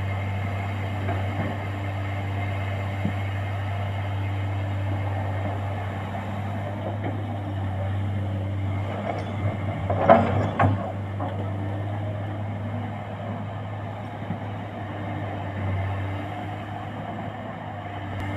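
Komatsu hydraulic excavator's diesel engine running steadily under work, a constant low drone. A brief clatter of knocks comes about ten seconds in and is the loudest sound.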